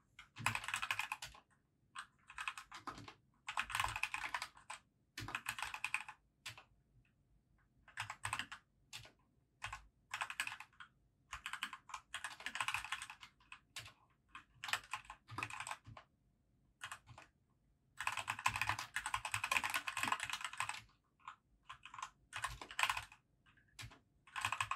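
Typing on a compact backlit keyboard: quick runs of key clicks broken by short pauses, with scattered single keystrokes between them. The longest run comes about three-quarters of the way through.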